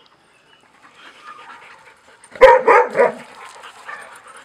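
A dog barking three times in quick succession about two and a half seconds in.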